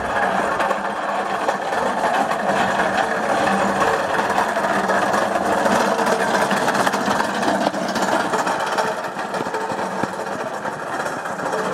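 Wooden go-kart rolling over a gravel road, its hard wheels giving a steady loud rattle and rumble that swells a little around the middle as it passes close by.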